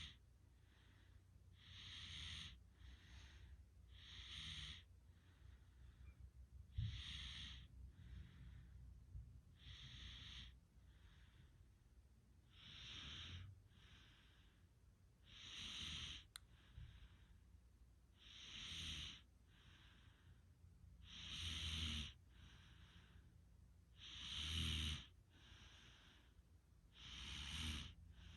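A sleeping person snoring, a hissy breath about every two and a half to three seconds, each louder breath followed by a softer one. The last few breaths carry a low rattle.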